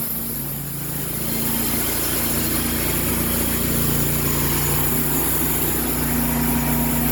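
Sawmill's gasoline engine running steadily, rising a little about a second in as the pass goes on. The engine is new but the owner believes its piston rings are failing.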